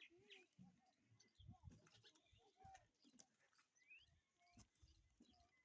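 Faint, scattered bird chirps and short calls, with one rising whistle about four seconds in.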